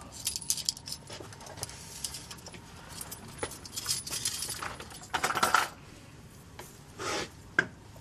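Steel leg irons and their connecting chain jangling and clinking, in many small irregular clinks with two louder scraping rattles past the middle.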